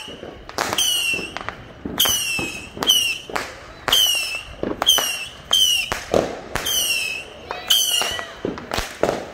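Whistling fireworks going off in quick succession: more than a dozen sharp cracks, each joined to a short, high whistle that drops slightly in pitch.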